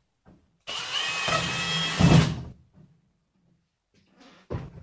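Power drill running in one short burst of about a second and a half, a steady whirr with a whine, ending in a low knock. A brief knock follows near the end.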